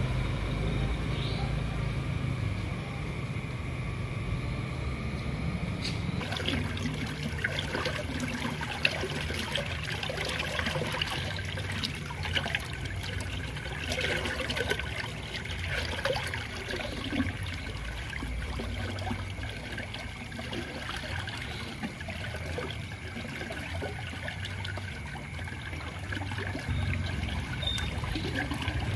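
Water trickling and splashing, with a steady low hum underneath; the splashing picks up about six seconds in.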